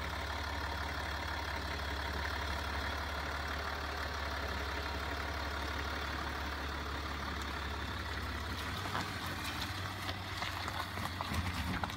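Land Rover Discovery engine running steadily at low revs, with scattered knocks and clatter in the last few seconds.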